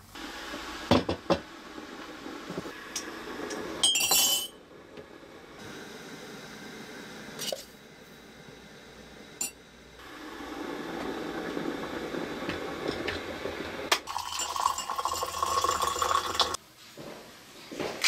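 Metal spoons clinking against ceramic mugs as coffee is scooped in, a few separate clinks, one of them ringing. From about ten seconds in, hot water is poured steadily into the mugs, stopping shortly before the end.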